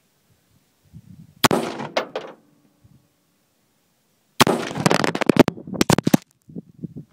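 AR-15/M4-type rifle firing. Two shots with ringing echo tails come about a second and a half in, half a second apart. After a pause, a rapid string of shots lasts nearly two seconds.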